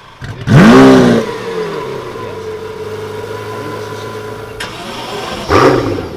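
Supercar engine starting up and flaring loudly as it rises in pitch and falls back, then settling into a steady idle. About five and a half seconds in there is one short throttle blip.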